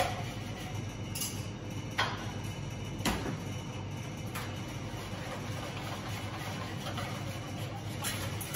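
A few sharp clinks of a saucepan and whisk knocking against a stainless-steel mixing bowl, the loudest about three seconds in, as hot milk is poured onto whisked egg yolks for a crème pâtissière base. A steady low hum runs underneath.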